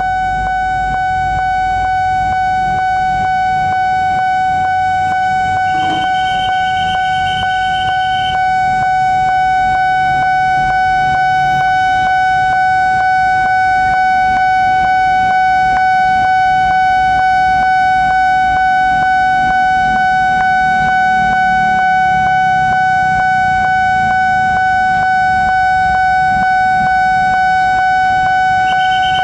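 Railway level-crossing warning bell ringing steadily with a fast, even repeat, warning that a train is approaching, over low traffic rumble that grows louder in the second half. A brief higher tone cuts in about six seconds in and again near the end.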